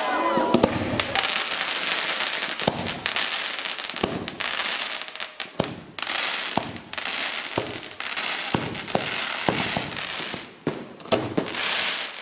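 Fireworks spraying: a steady hiss with scattered crackles and pops throughout, dipping briefly a little before the end.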